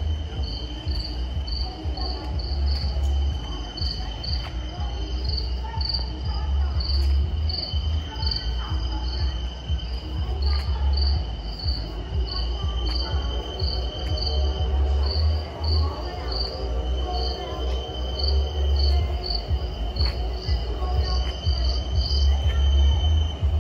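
Crickets chirping in a steady, regular rhythm of a few chirps a second over a continuous high trill, with a low rumble underneath and faint music in the background.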